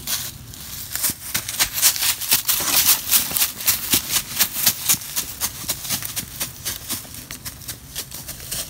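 Quick footsteps crunching through dry leaf litter, several steps a second, loudest in the first half and growing fainter toward the end as the walker moves away.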